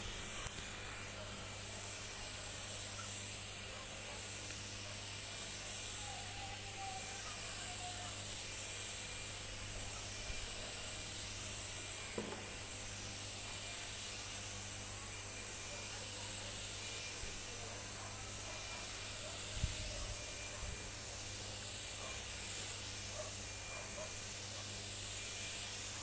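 Compressed-air paint spray gun hissing steadily as it sprays paint, with the steady low hum of the compressor motor underneath.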